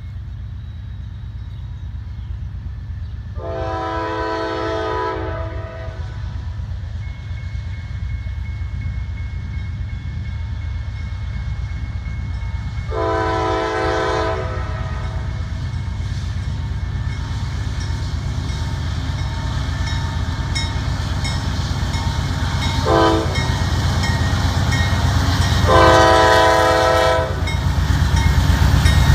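Diesel locomotive horn on an approaching Norfolk Southern freight train sounding the grade-crossing signal: two long blasts, a short one, then a long one. Beneath it the locomotives' diesel engines rumble, growing louder as the lead unit reaches the crossing, and the crossing's warning bell rings from several seconds in.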